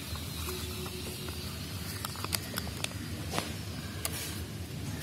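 Stiff craft paper being folded and pressed by hand: light rustling with scattered sharp clicks, over a steady low background hum.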